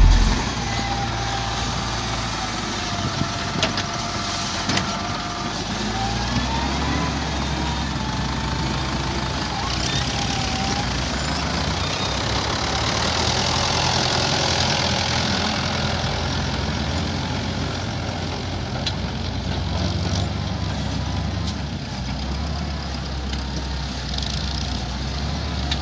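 XCMG LW300KN wheel loader's diesel engine running steadily under load as it dumps, travels and scoops soil. A thin whine that wavers up and down in pitch runs over it for the first ten seconds or so.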